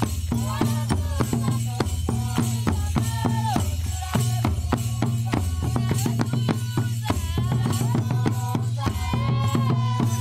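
African dance music: hand drums and rattles beating a fast, steady rhythm under singing voices.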